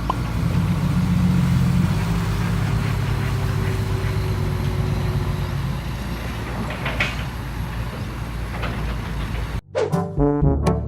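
Crawler excavator's diesel engine running with a steady low rumble, louder for a second or two near the start, with a faint steady whine for a few seconds. Near the end it cuts abruptly to brass-band music.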